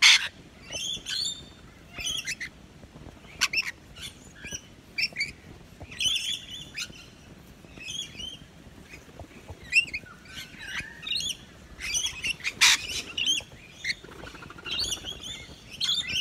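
A flock of rainbow lorikeets chattering with many short, high chirps and screeches, with a few louder, sharper shrieks among them.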